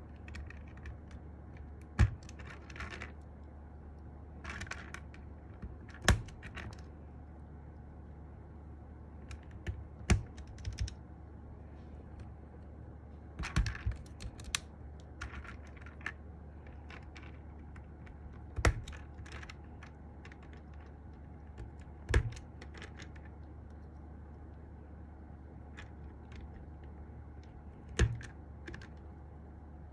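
Sky87 mechanical keyboard keys being pressed sporadically. A loud keystroke comes every few seconds, seven in all, with lighter key clicks scattered between them, rather than continuous typing.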